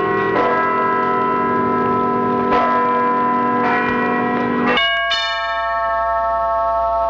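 Church bells ringing, struck several times at an uneven pace with a rich, overlapping ring. About five seconds in, this cuts to a different, higher-pitched bell, struck once and left ringing with a long decay.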